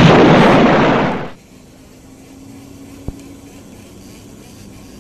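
A sudden, very loud blast of rushing noise that fades out after about a second and a half, then a boat's outboard motor running steadily at low speed, with one sharp click about three seconds in.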